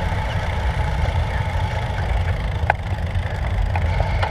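Steady low rumble of wind on a bike-mounted camera's microphone while riding, with road-bike tyres rolling on asphalt and one sharp click about two and a half seconds in.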